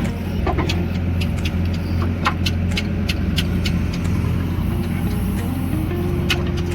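Heavy diesel engine running steadily at a low, even drone, with scattered sharp clicks and knocks over it.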